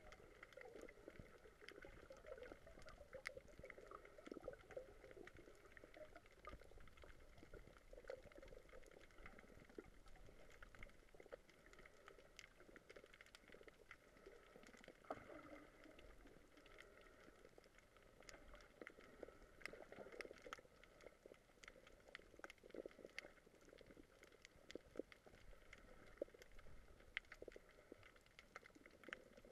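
Faint underwater ambience heard by a submerged camera: a steady muffled hiss with many small scattered clicks.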